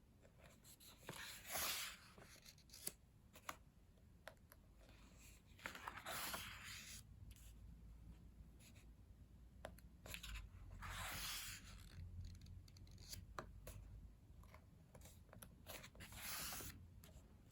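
Pages of a photobook being turned by hand: four soft paper swishes about every five seconds, with small clicks and rustles of handling in between.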